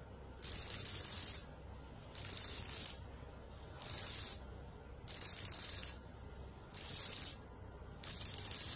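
Small vibration unit buzzing in a run of separate pulses, each under a second long and about one every second and a half, as it sits in a ceramic bowl. The pulses count out a dice-cheating receiver's vibration code, here the seven pulses that signal 'three black'.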